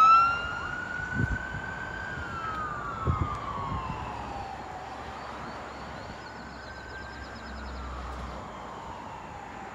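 Ambulance siren wailing in slow rising and falling sweeps, fading as the vehicle moves away, with a couple of short low thumps about one and three seconds in.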